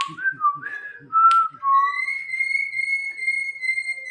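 Pet jalak (starling) whistling: a few short stepped notes, a sharp click about a second in, then one long, steady, high whistle.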